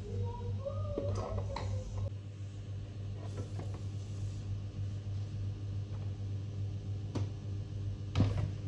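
A steady low hum with scattered light clicks and knocks, and one louder knock near the end. A brief wavering tone sounds during the first two seconds.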